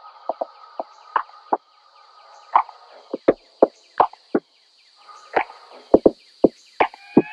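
Irregular sharp knocks and clicks of objects being handled and set down on a tabletop close by, over a faint steady high hiss.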